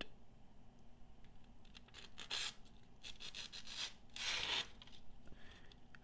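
Faint rustling of a sheet of thin phone book paper being handled against a knife blade, with two brief swishes about two and four seconds in.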